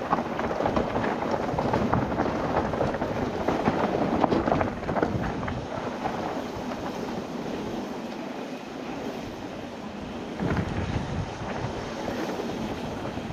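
Mountain bike riding a dry, loose dirt jump trail: tyre noise on the dirt and rattling from the bike, with wind on the microphone. It is loudest for the first few seconds, eases in the middle, and picks up again near the end.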